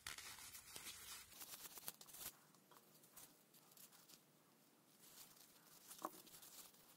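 Faint handling noises of a speedometer's small gear mechanism being worked with a thin metal tool and gloved hands: fine scratchy clicks and scrapes over the first two seconds, then quieter fiddling, with one sharper click about six seconds in.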